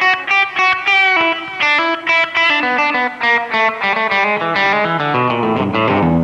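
1971 Gibson Les Paul Custom electric guitar played through an amplifier: a run of picked single notes, several a second, settling into a ringing chord near the end.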